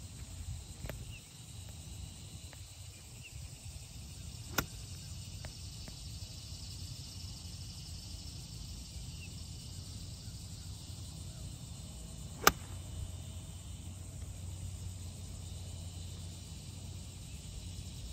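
The crisp crack of a 9-iron striking a golf ball about twelve and a half seconds in, the loudest sound. A fainter click comes about four and a half seconds in, and a steady insect chirring with a low wind rumble runs underneath.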